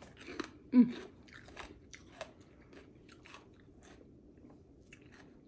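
A person chewing crunchy food, a run of short crunches that comes thick in the first couple of seconds and then thins out. About a second in comes a brief, louder murmur from the voice.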